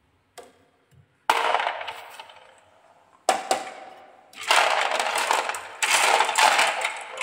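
Colourful balls clattering and rolling against each other in the plastic cargo bed of a toy pickup truck as a hand pushes them about. Two sudden clatters that die away come about a second and three seconds in, then a dense run of rattling starts about four and a half seconds in.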